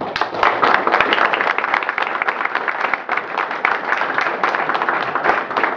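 Audience applauding, many people clapping at once, starting suddenly and holding steady.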